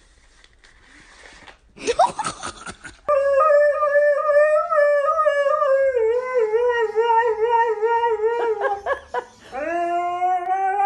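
Dog howling: a long wavering howl begins about three seconds in, and a second howl starts with an upward slide near the end.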